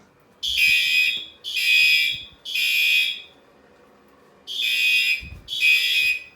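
Fire alarm horns sounding the temporal code-3 evacuation signal, a system in alarm from a pulled station: three blasts of about a second each, a short pause, then three more.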